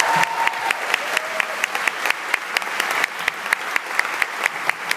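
Audience applauding, with sharp claps close to the microphone at about five a second.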